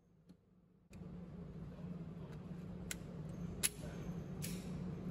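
A steady low hum comes in about a second in. Over it come three light clicks and rustles as a Glock 43X pistol is handled and raised, with no shot fired.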